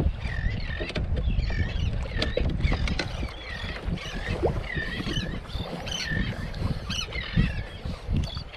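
Baitcasting reel being cranked under heavy load against a big fish, giving a squeaky whir that dips and rises with each turn of the handle, a little over once a second. Wind rumbles on the microphone underneath.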